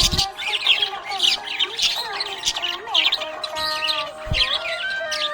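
Budgerigar chirping and chattering in quick, repeated bursts, over background music with held notes; two brief low thumps, one near the start and one about four seconds in.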